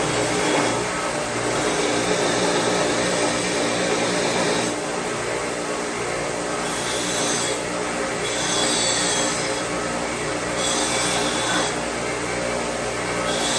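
Power sander running steadily while the cut end of a metal exhaust pipe is faced on it, pressed on in repeated passes of about a second each that add a harsher high grinding rasp.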